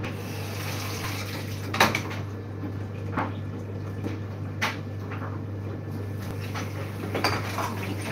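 Dishes being washed by hand in a kitchen sink: crockery and cutlery clinking a few times, with water sloshing between the clinks. A steady low hum runs underneath.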